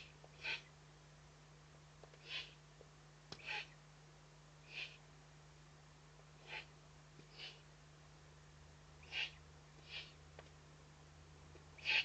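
Eurasian eagle-owl chick giving its begging call: short hissing calls repeated every second or two, often in pairs.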